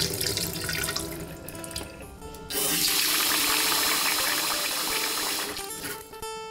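Sticky rice being swished by hand in water in a stainless steel bowl, then a kitchen tap starts suddenly about two and a half seconds in and runs steadily into the bowl for about three seconds before fading out near the end.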